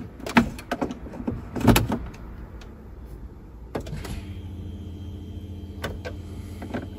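A few sharp clicks and knocks, then about four seconds in a steady low electric-motor hum starts and holds.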